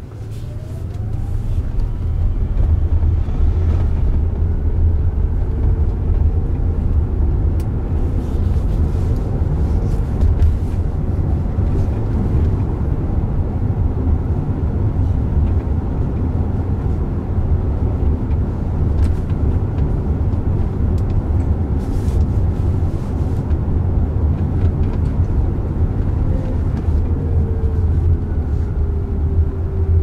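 Road and tyre noise inside the cabin of a Waymo Jaguar I-Pace electric SUV pulling away and driving at city speed: a steady low rumble that builds over the first few seconds, with a faint rising electric-motor whine as it accelerates and a faint falling whine near the end.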